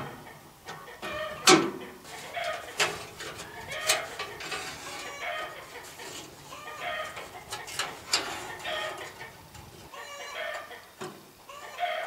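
Sharp clicks and knocks of hands working the front turn-signal lamp socket into its bumper housing, the loudest about a second and a half in. Repeated short pitched calls run underneath.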